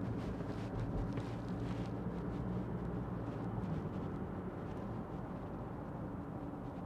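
Steady in-cabin running noise of a 2016 Mitsubishi Shogun 3.2 DI-DC four-cylinder turbodiesel on the move: a low, even engine hum under road and tyre noise.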